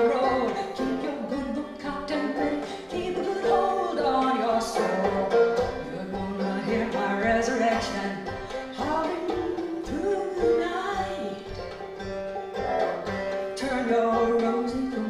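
Banjo playing a song, with a woman singing over it.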